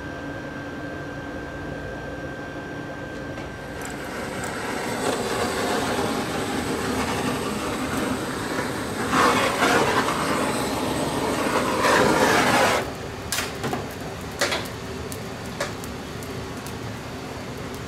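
Straw fire burning in a pan for searing bonito: a rushing noise builds about four seconds in, is loudest for several seconds, then drops off suddenly and leaves a few sharp crackles.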